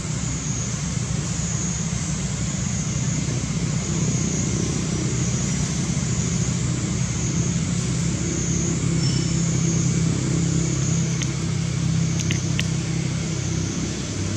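A steady low rumble like a motor vehicle's engine or passing traffic, growing louder through the middle and easing off near the end, with a high, wavering hiss above it and a few faint clicks near the end.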